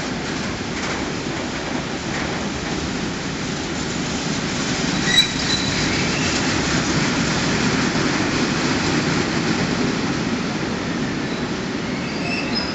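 Freight train of covered wagons rolling past close by: a steady rumble of wheels on rail. A sharp click with a brief high squeal comes about five seconds in, and faint squeals come again near the end.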